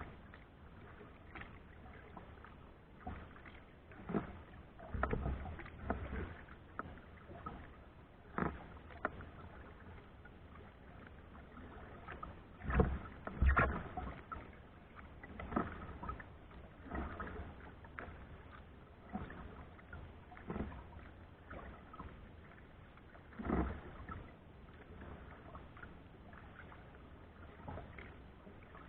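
Kayak paddle strokes in the water: irregular splashes and drips every one to three seconds, the loudest a little before halfway.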